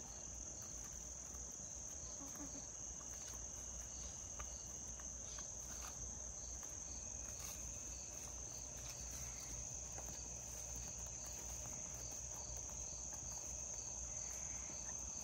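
Faint, steady high-pitched chorus of crickets trilling, with a softer chirp repeating at even intervals alongside it.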